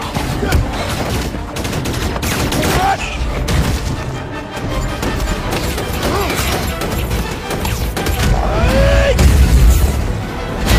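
Dense film battle sound mix: repeated explosions, blasts and impacts with a heavy low rumble, over an orchestral score. The rumble builds to its loudest near the end.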